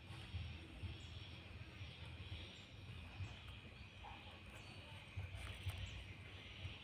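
Faint outdoor background with an uneven low rumble, over which a knife blade scrapes and clicks softly as it cuts foam bait on a wooden stump.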